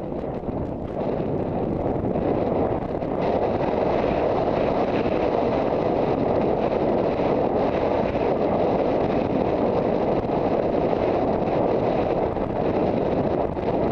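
Wind rushing over a rider's helmet-camera microphone during a cross-country gallop, a steady, heavy buffeting that grows louder about three seconds in.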